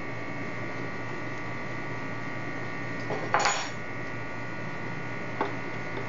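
Steady electrical hum, with one brief rasping noise about halfway through and a faint click near the end.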